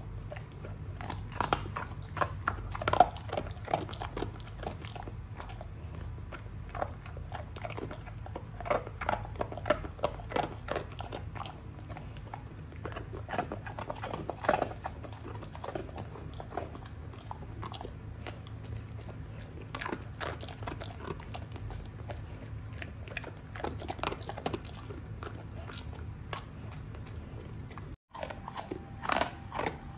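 Golden retriever chewing and crunching food, a quick irregular run of crunches and bites over a steady low hum.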